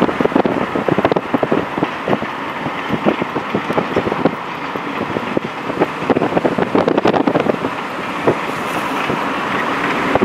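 Wind buffeting the microphone and road noise from a car driving alongside a train, a dense rushing noise full of rapid irregular thumps.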